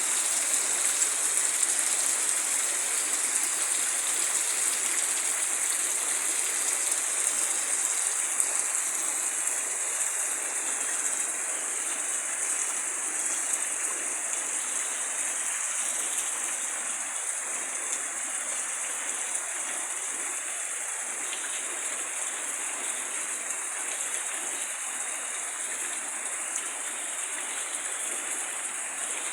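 Steady rainfall, an even hiss that eases slightly toward the end.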